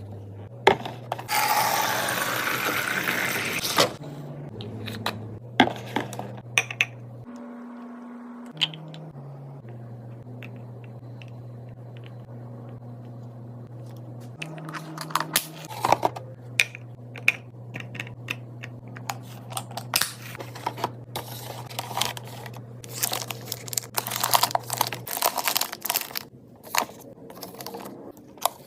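Fridge restocking and handling sounds: plastic packaging rustling and crinkling loudly for a few seconds near the start, then items and containers clicking, tapping and clinking as they are set in place.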